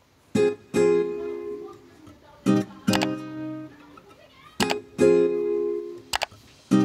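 Background music of strummed chords: a short stroke followed by a ringing chord, the pair repeating about every two seconds.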